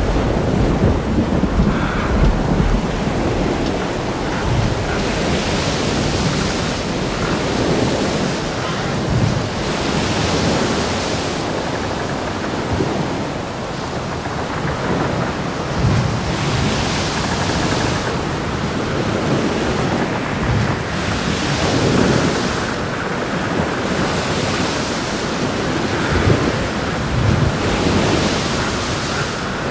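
Storm ambience: a steady rush of rain, wind and sea, with louder swells every few seconds.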